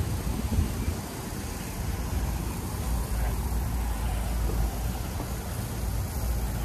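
A parked vehicle's engine idling: a steady low rumble.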